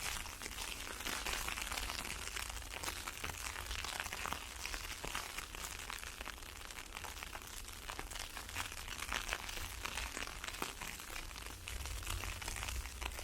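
Ice pellets and snow hitting an open umbrella, a dense, irregular crackle of tiny ticks, with a low rumble underneath.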